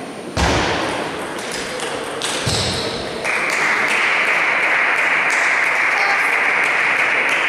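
Light clicks and taps of a table tennis ball, with a dull thump about half a second in and another around two and a half seconds. From about three seconds a steady rushing noise takes over as the loudest sound.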